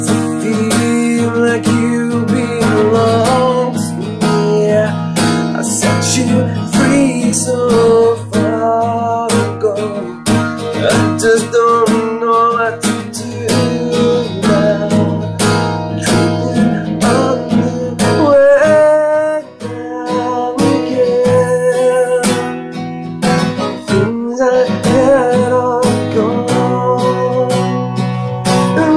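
Acoustic guitar strummed in a steady rhythm of chords, with a brief dip in the playing about two-thirds of the way through.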